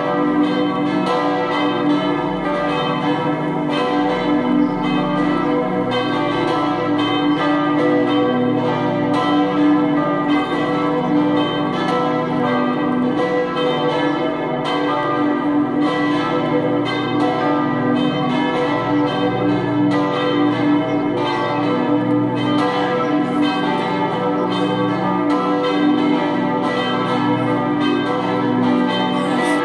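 Four swinging church bells, tuned B2, D3, E3 and G3 and cast in 1804 and 1855, ringing together in full peal. The strokes overlap in a dense, continuous ringing.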